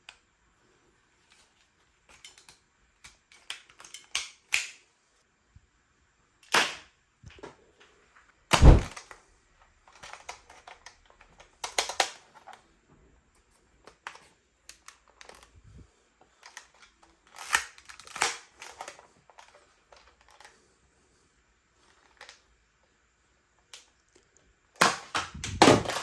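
Toy gun being handled and fired: scattered small plastic clicks and rattles, with several sharp snaps, the loudest about nine seconds in, and a quick run of snaps near the end.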